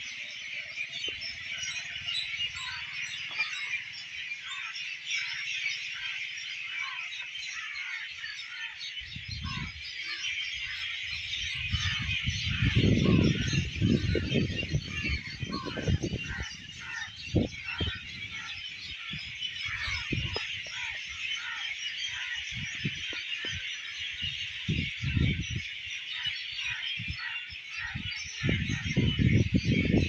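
Dense evening chorus of many small birds chirping without a break. Loud low rumbling bursts on the microphone come and go over it, about ten seconds in, again a few seconds later, and near the end.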